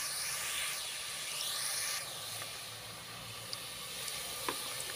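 Sliced onion, ginger and star anise frying in hot oil in a pot: a steady sizzling hiss, louder for the first two seconds and then softer. A few light clicks near the end.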